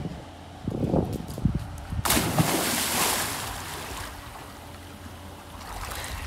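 A boy jumping into a swimming pool: a sudden loud splash about two seconds in, then the water churning and settling.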